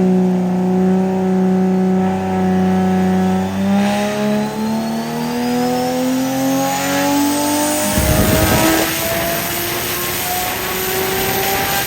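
Nissan RB26 straight-six with a big turbo making a full-load dyno pull: the engine holds steady for a few seconds, then its revs climb steadily for about eight seconds, with a thin high whistle rising alongside, before it cuts off near the end. A short rough noisy burst breaks in about eight seconds in.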